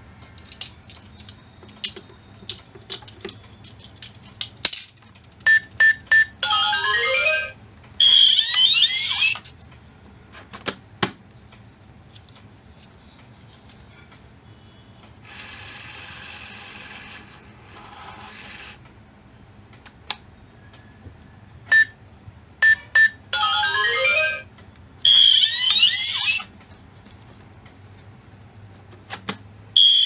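Electronic toy ATM piggy bank sounding off: a few quick beeps, then a falling run of electronic tones and a short chirpy electronic jingle, all twice, the second time about sixteen seconds after the first. In between come small clicks and a steady whirring noise lasting about three seconds.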